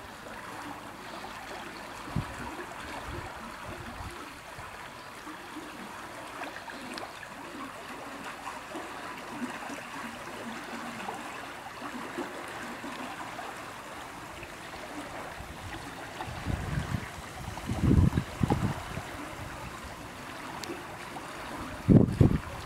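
Steady rush and trickle of shallow flowing water. Near the end a few gusts of wind buffet the microphone, as low rumbles.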